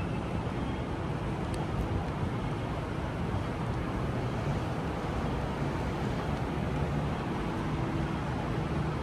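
Steady background ambience of a large indoor hall: an even low rumble and hiss with a faint hum underneath, no distinct events.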